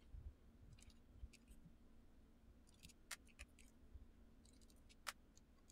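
Near silence with faint, scattered clicks from a hand Torx screwdriver and tiny screws as they are backed out of a plastic power-drill housing. One sharper click comes about five seconds in.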